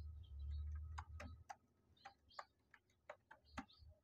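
Computer keyboard keys being typed, about a dozen faint, irregular clicks. A low hum sits under the first second and a half, then stops.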